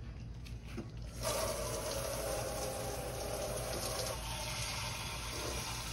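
Liquid pouring in a steady stream, starting abruptly about a second in.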